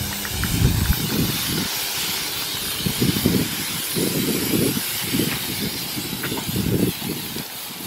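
Aerosol spray cans hissing continuously as paint is sprayed onto a car's body, with irregular low rumbling underneath.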